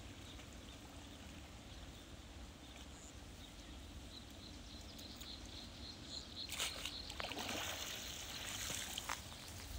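Wet cast net being hauled out of shallow muddy water: faint water sloshing and dripping, turning to louder splashing and rustling of the net in the second half.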